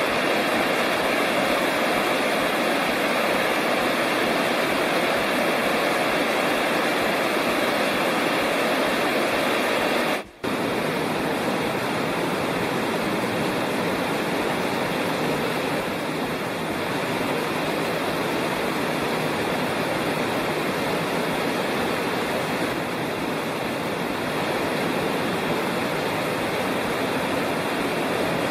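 Rushing water of a mountain creek, a steady, even rush with a momentary break about ten seconds in.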